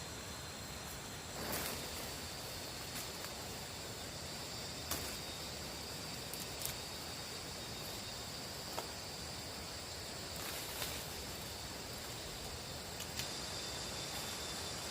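Insects chirring steadily at a high pitch, with a few scattered sharp clicks and knocks.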